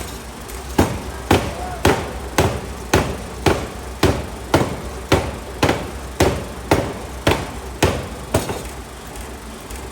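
A 750 kg pneumatic forging hammer striking a large hot steel block in steady, evenly spaced blows, about two a second, which stop near the end.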